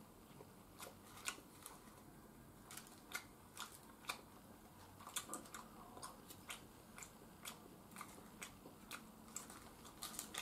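Quiet eating sounds: a person chewing rice and nori, with light irregular clicks, roughly two a second, from the mouth and chopsticks against the rice bowl.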